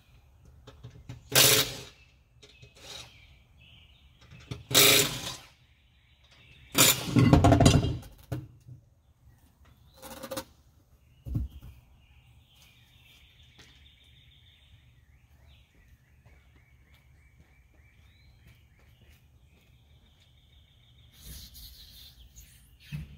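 Birds chirping, with five loud, brief noises in the first half, the longest about seven seconds in.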